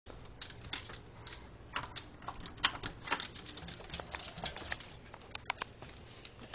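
Dogs' claws clicking and scrabbling on a floor and wooden deck boards as two dogs scramble out through a door: rapid, irregular clicks, several a second, which thin out near the end.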